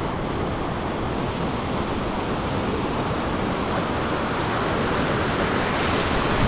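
Ocean surf breaking and washing in: a steady rush of waves.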